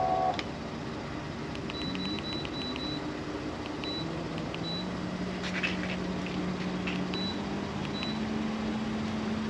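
Minn Kota trolling motor answering its wireless remote: short high beeps, a quick run of them about two seconds in and then single ones every second or so, while the motor's low hum steps up in pitch a few times as the speed is raised. The motor works on its new power plug.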